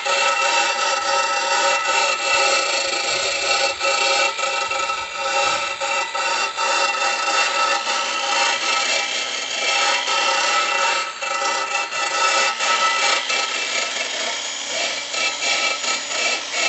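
Power-driven wire brush scrubbing the burrs off a soft steel lawnmower deck, a steady grinding scratch with a ringing metallic whine through it, which stops at the very end.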